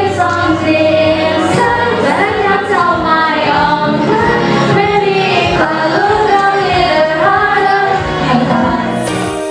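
A small group of girls singing a song together into microphones over a musical accompaniment. Shortly before the end the song cuts off and a different piece of music begins.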